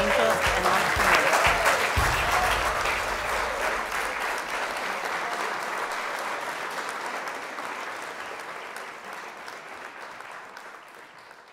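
Audience applauding, fading out gradually over the last several seconds. Background music plays underneath for the first two seconds.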